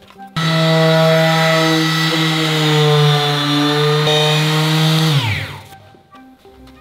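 Electric power tool running at a steady high speed, then switched off about five seconds in and winding down with falling pitch.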